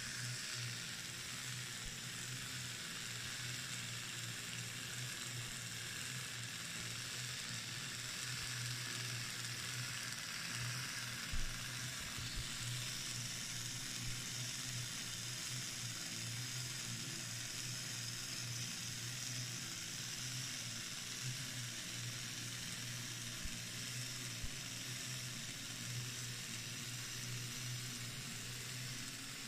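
Replica of William Skinner's 1939 gravity-powered engine running: a steady whirring hiss with a low hum from its flywheel, toothed belts and pulleys turning, with a few faint clicks, the sharpest about eleven seconds in.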